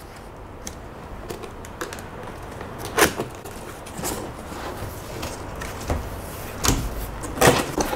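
A large cardboard box being opened by hand: cardboard rubbing and a few scrapes and knocks as the lid and flaps are lifted, the loudest about three seconds in and near the end.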